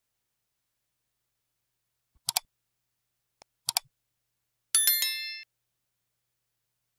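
Two quick double clicks about a second and a half apart, then a short, bright bell ding with several ringing high tones that cuts off abruptly after well under a second.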